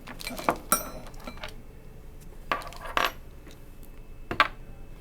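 Metal tools and parts clinking and knocking together in a few sharp hits, one with a brief metallic ring; the loudest knock comes near the end.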